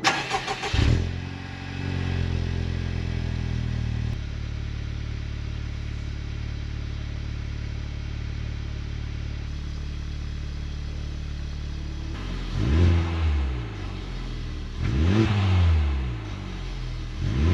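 Honda Civic Type R's 2.0-litre turbocharged four-cylinder on its stock exhaust starting up, heard inside the cabin. It settles into a raised cold idle that drops to a lower steady idle after a few seconds, then is blipped three times, each rev rising and falling back, about two and a half seconds apart.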